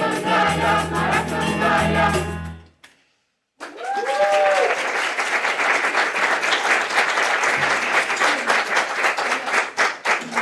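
A choir singing with instrumental accompaniment ends on a held chord about two and a half seconds in. After a brief silence, an audience breaks into steady applause, with a short cheer as it begins.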